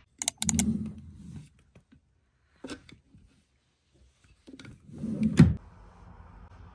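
Plastic drawer sliding open and shut: a few clicks and a rumbling slide near the start, and another slide ending in a sharp knock about five seconds in.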